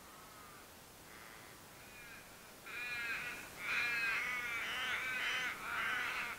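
Ravens calling, one caw after another. The calls are faint at first, then much louder and almost continuous from about two and a half seconds in.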